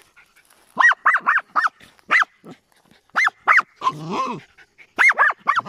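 Small dogs yipping excitedly at an armadillo cornered in its burrow: short, high yips in quick bursts, with one longer, lower call about four seconds in.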